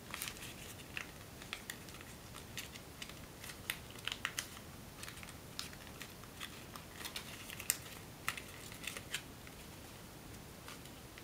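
Folded origami paper crinkling and crackling as fingers press and pinch it into shape, in soft, irregular clicks scattered throughout.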